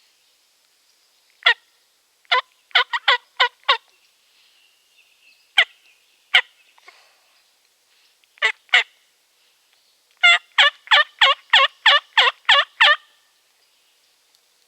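Hen turkey yelps: short, raspy notes in runs, a single one, then five, two and two, then a quicker run of about nine near the end. Made close by, the kind of calling used to draw a jake toward decoys.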